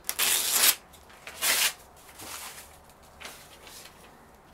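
Rasping strokes of a Pirat 'Starshina' knife blade: two loud ones, one at the start and one about a second and a half in, then several fainter ones.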